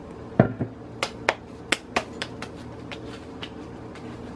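Hands slapping and patting tortilla dough: one heavier thump about half a second in, then a quick run of sharp slaps that grow fainter and die away.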